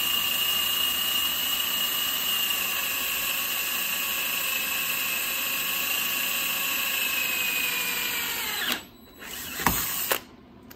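Cordless drill boring a small pilot hole into a steel black-pipe fitting, its motor giving a steady whine. It stops abruptly about nine seconds in, followed by a couple of short knocks and a brief blip.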